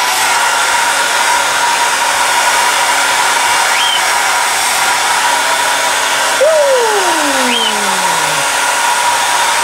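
Hair dryer blowing steadily, with a thin steady whine inside its rush of air. Twice a short rising chirp sounds over it, and about six and a half seconds in a long call slides downward.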